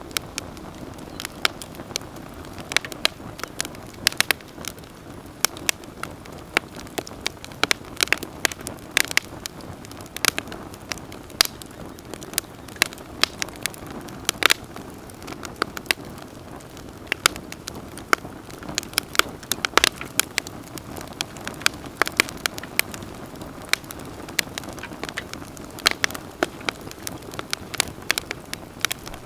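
Wood campfire burning, with a steady low rush of flames and frequent sharp, irregular crackles and pops.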